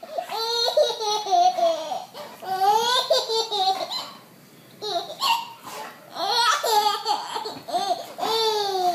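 A baby laughing in repeated high-pitched bursts, with a short break about four seconds in.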